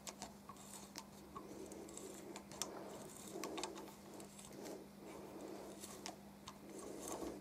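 Faint clicks and soft scraping of an M5 taper tap being turned by hand, cutting a thread into a drilled hole in a thin aluminium tube, over a faint steady hum.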